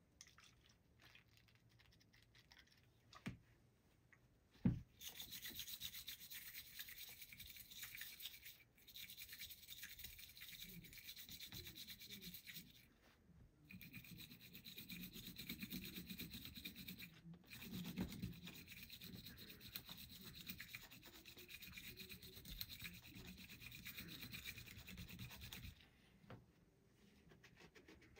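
Steady rubbing and scrubbing on the cylinder of a Colt Frontier Scout .22 revolver, working off carbon fouling. It starts about five seconds in, right after a single sharp knock, pauses briefly a few times, and stops a couple of seconds before the end.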